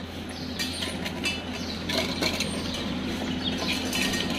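A steady mechanical hum runs under light scattered clinks and taps from steel dog feeding bowls on a tiled floor as dogs feed and move around them.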